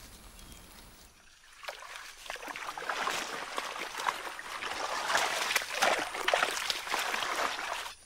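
After a quiet first second, shallow muddy marsh water sloshing and splashing in many small bursts, growing louder.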